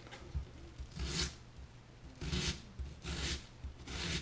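Kitchen knife slicing down through an onion onto a plastic cutting board. Four short cuts about a second apart, starting about a second in: the parallel cuts for dicing the onion.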